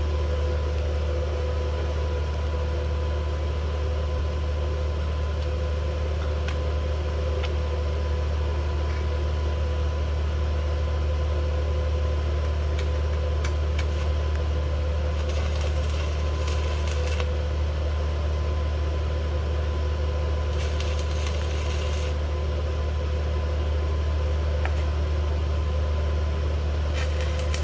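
A steady low hum with a faint higher whine, with a few light clicks and short bursts of hiss about 15, 21 and 27 seconds in.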